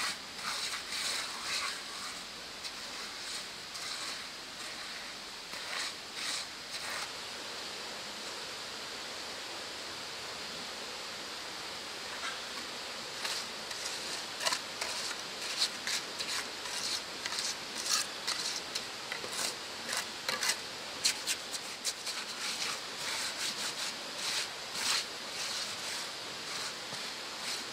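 Trowel scraping and tapping wet cement mortar against stones in short, irregular strokes, sparse at first, with a steady stretch and then coming thick from about halfway through. Under it, a steady high insect buzz.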